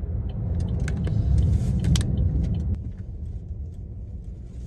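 Car road and engine noise heard from inside the cabin while driving: a low rumble that swells for a couple of seconds, then eases off about three seconds in.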